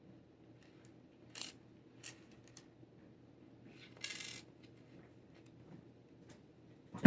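Clear plastic jigsaw puzzle pieces being handled: a few light clicks and a short rattle of pieces against each other and the table. A loud knock comes right at the end.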